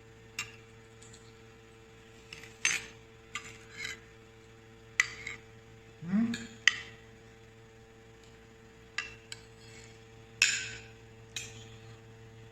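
Dishes and cutlery being handled in a kitchen: about ten separate clinks and knocks, spaced irregularly, over a faint steady hum.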